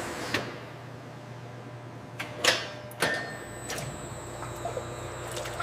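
Industrial machinery running with a steady low hum, broken by several sharp mechanical clicks and clacks.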